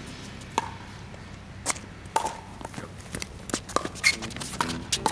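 Pickleball rally: paddles hitting a hard plastic pickleball in a string of sharp pops with a short ring, coming faster in the second half, mixed with the ball bouncing and shoes scuffing on the hard court.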